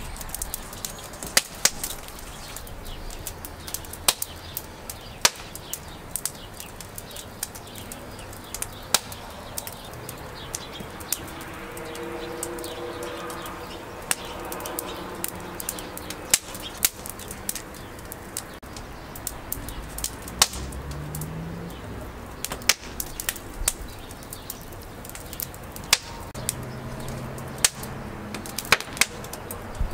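Scattered sharp clicks and taps of a silicone pastry brush dabbing egg wash onto raw dough buns in a metal pan and against a glass bowl, over steady outdoor background. A faint low drawn-out pitched sound comes about halfway through.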